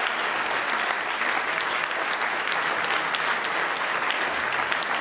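Audience applauding steadily: dense, even clapping from many hands, with no music.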